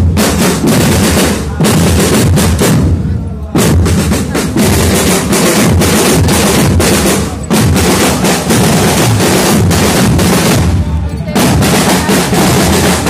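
Marching drum section of a parade band playing bass drums and snare drums close by, loud and continuous, with brief breaks between phrases about four times.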